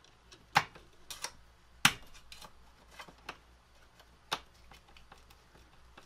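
Scattered sharp clicks and taps, the loudest about half a second and about two seconds in, as a DIN-rail end clamp is set on the rail beside the terminal blocks and its screw is turned with a screwdriver.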